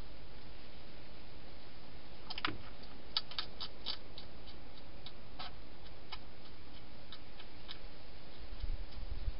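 A wild hedgehog eating: irregular sharp crunching clicks, a few a second, over steady camera hiss. A low rumble comes in near the end.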